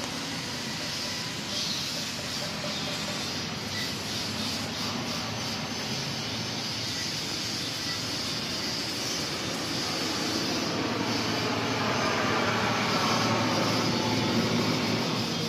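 Steady road traffic noise from a highway, swelling about two-thirds of the way through as a vehicle draws near.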